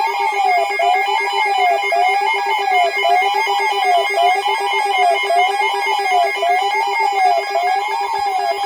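Weather radio's electronic alert alarm: a warbling siren tone that rises and falls about once a second over a steady, rapidly pulsing buzz, repeating without a break.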